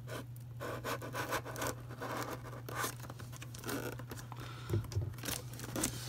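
A cardboard box and its packing tape being cut and scraped at by hand, a run of short scratchy strokes, rustles and small knocks.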